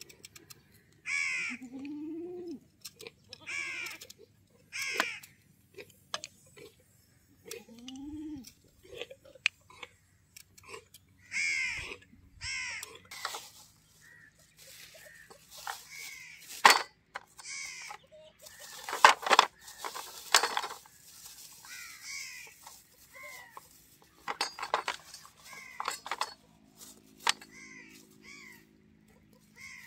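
Crows cawing over and over, a harsh call every second or two. A few sharp knocks come in the middle, and two short low rising calls come early on.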